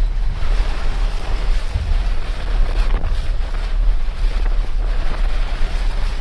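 Dense, steady rushing noise like strong wind over a deep continuous rumble, a layered fight sound effect.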